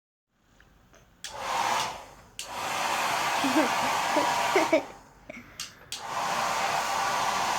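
Handheld hair dryer blowing, switched on and off three times: it starts sharply with a steady whoosh, dies away, then starts again about a second later. After a short gap near the middle it comes on again and runs steadily.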